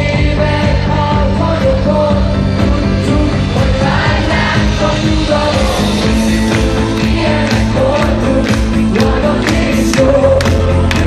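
Live pop-rock band playing through a large PA, with a male lead vocal over keyboards, guitar and drums; cymbal hits come in near the end.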